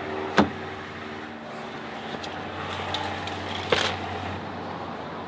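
Pickup truck rear door unlatching with a sharp clack, a soft cooler bag handled out of the back seat, then the door shut with a second sharp strike a bit over three and a half seconds in, over a steady low hum.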